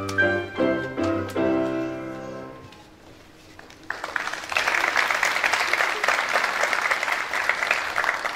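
Grand piano played four hands, striking its closing chords and letting them ring out and fade away over the first three seconds. After a short lull, an audience applauds steadily from about four seconds in.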